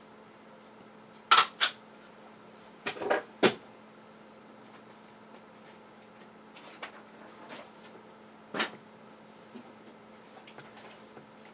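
A few sharp knocks and clicks over a faint steady hum: two close together about a second in, a quick cluster of three about three seconds in, and one more near nine seconds.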